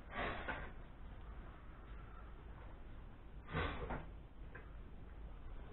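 A steel scribe probing a toolbox lock: two brief scrapes, about three seconds apart, over a low steady hum.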